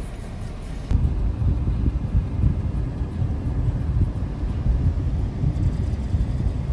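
Low rumble of road and wind noise from a moving car. It gets abruptly louder about a second in and stays loud and uneven.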